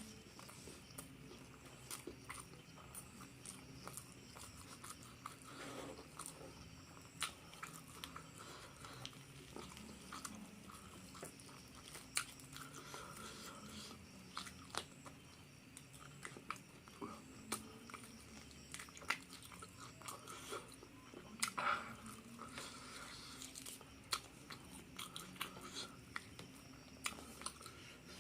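Close-miked eating: a person chewing and biting into crispy fried duck and rice, with irregular crunchy clicks and smacking throughout.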